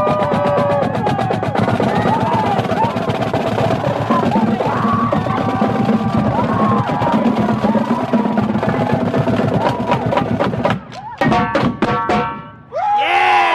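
Street drumline playing marching snare drums in fast rolls and rhythms. About eleven seconds in the playing breaks into a few last separate hits, and near the end the crowd cheers and whoops.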